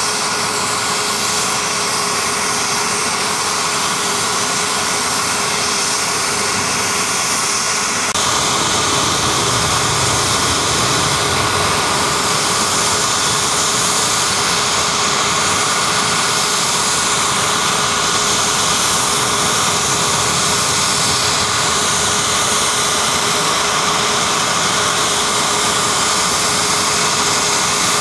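Mi-8 helicopter's turbine running during start-up with a steady high whine while the rotor is still at rest. About eight seconds in it grows a little louder and fuller.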